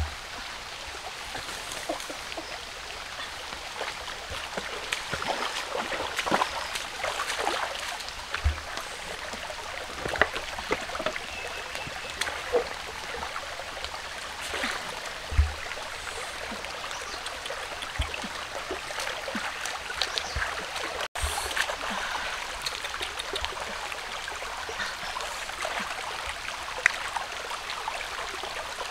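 Shallow stream running over rocks, a steady trickling wash of water, with scattered splashes and knocks as a person wades through it.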